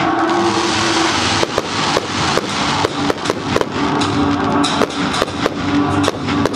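Fireworks going off over a music soundtrack: a rapid series of sharp pops and bangs from shells and comets being fired, two or three a second from about a second and a half in, with sustained music underneath.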